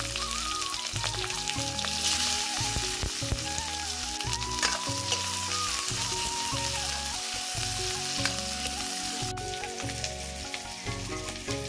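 Sliced onions frying and sizzling in hot oil in a black iron wok, stirred now and then with a metal ladle scraping the pan.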